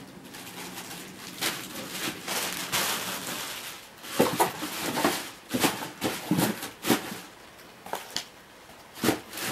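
Cardboard packaging inserts and plastic wrapping being packed back into a cardboard box: rustling and scraping, with several sharp knocks and clicks in the second half.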